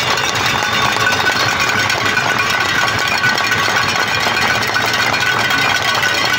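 Arena crowd applauding steadily, a dense continuous clatter of many hands clapping.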